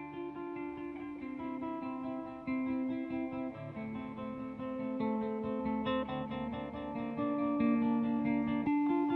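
Acoustic guitar music: plucked and strummed chords with a melody on top.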